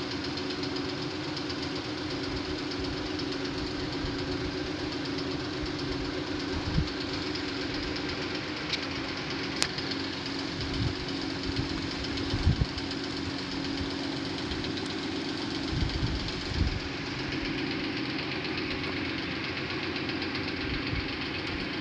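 A steady mechanical drone, like a motor running, with a constant low hum and a few brief low thumps.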